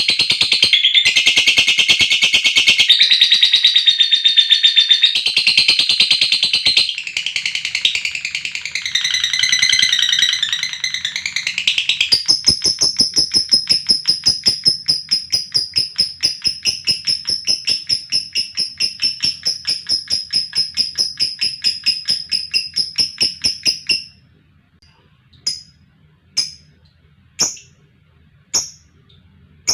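Lovebird calling in a long, rapid chattering trill, the 'ngekek panjang' prized in Indonesian lovebird keeping: shrill busy chatter at first, then an even rapid run of high notes, about three to four a second. The trill stops sharply about 24 seconds in, and single sharp chirps follow about once a second.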